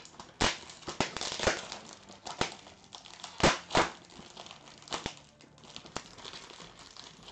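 Stiff plastic packaging crinkling and tearing as it is ripped apart by hand, in irregular sharp crackles and snaps, the loudest about three and a half seconds in.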